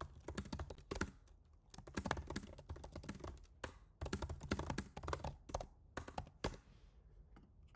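Typing on a computer keyboard: quick keystroke clicks in uneven bursts as a short sentence is typed, stopping about six and a half seconds in.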